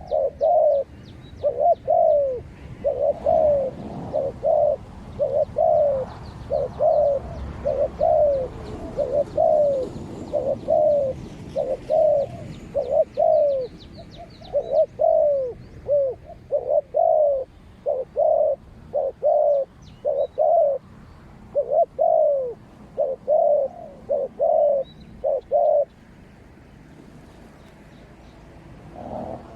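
Spotted doves cooing, a quick run of short repeated coos that stops about 26 seconds in. Faint high chirps of small birds sound above them.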